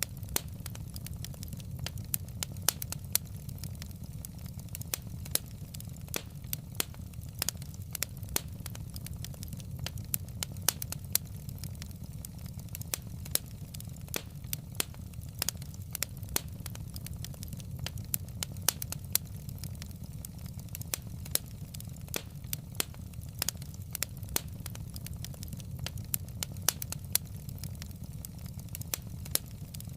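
Wood fire burning in a fireplace: a steady low rumble of flame with many sharp crackles and pops from the logs, several a second and uneven.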